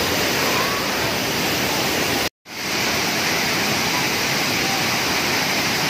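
Waterfall: a steady, loud rush of water falling onto a rock shelf and shallow pool. About two seconds in, a split-second gap of silence breaks it.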